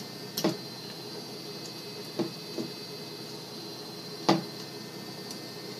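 Four short sharp clicks of a small metal tool and screw knocking against a rifle's pistol grip and lower receiver as the grip screw is worked in, the loudest about four seconds in, over a steady background hum.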